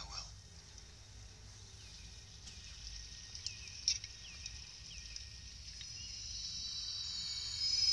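Night insects chirping in a steady high-pitched drone, with a run of short falling chirps in the middle, swelling louder near the end.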